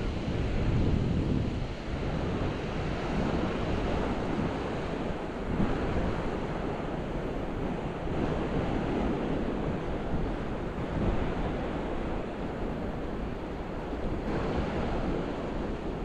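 Ocean waves breaking and washing up a sandy beach, a steady surf that swells and eases, with wind rumbling on the microphone.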